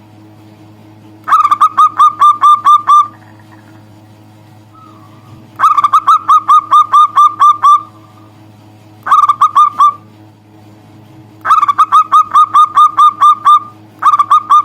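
Zebra dove (perkutut) calling to a rival: bursts of rapid, evenly spaced notes, about eight to ten to a burst. The bursts repeat five times with short pauses between them, the last one cut off at the end, over a steady low hum.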